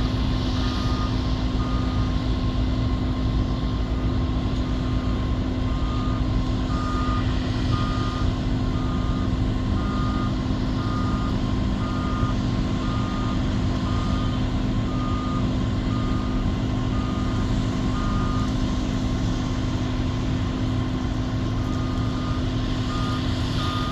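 Doosan 480 excavator's diesel engine running steadily with a low hum. Its travel alarm beeps repeatedly, a little more than once a second, pausing for about two seconds near the end before starting again.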